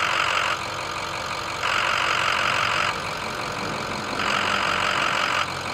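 A 2006 Ford 6.0 Power Stroke V8 turbo diesel idling, switching between its typical 6.0 idle rattle and a quieter idle. Three stretches of loud rattle, each about a second long, give way to the quieter idle with the rattle gone, the sign of the tune's quiet idle setting.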